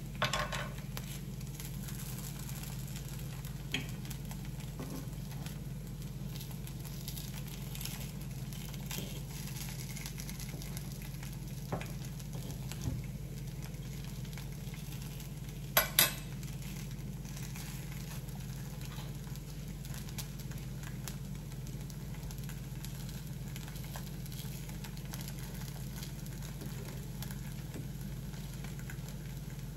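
Appam frying in a few drops of oil in a non-stick appe pan, a soft steady sizzle over a low steady hum. A metal fork clicks against the pan now and then, loudest in a quick pair about halfway.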